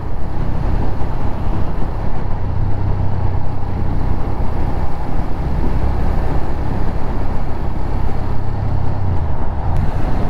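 Suzuki Gladius V-twin motorcycle at steady highway cruising speed: a constant low engine drone under heavy wind rush, with no change in pitch.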